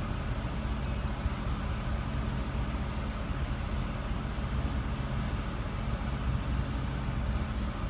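A 1988 Nissan 300ZX's V6 engine running steadily, held at about 2,000 RPM for an air-fuel mixture self-test.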